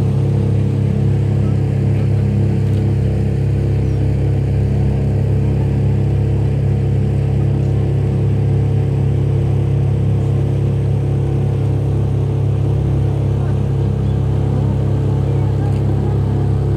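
A river sightseeing boat's engine running steadily under way, heard from on board as a constant low drone.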